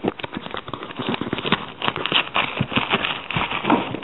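Paper and cardboard crinkling and rustling as hands dig through a mailing box packed with crumpled newspaper: a dense run of small, irregular crackles and clicks.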